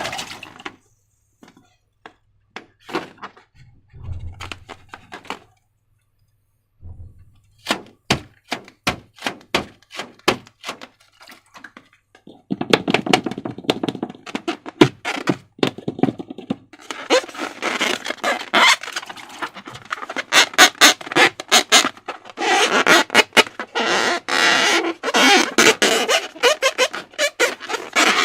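Slime worked by hand: sticky clicks and squelches, a few at a time at first, then a dense crackling run that grows louder in the second half.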